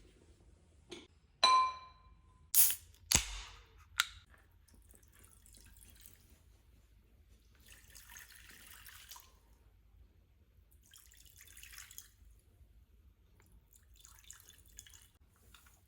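Bowls clinking as they are set down, the first ringing briefly, then coconut water poured into the bowls in four separate pours.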